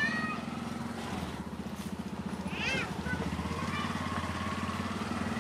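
Baby macaque giving short high squeaks: a brief one at the start and a clearer one about two and a half seconds in that rises and falls in pitch. A steady low hum runs underneath.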